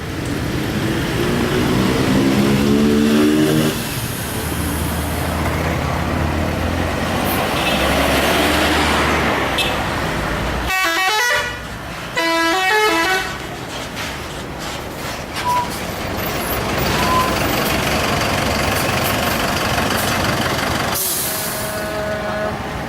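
Telolet horn of a Scorpion Holiday coach: a multi-tone musical air horn sounding several bursts of quick stepping notes, with the coach's engine running underneath.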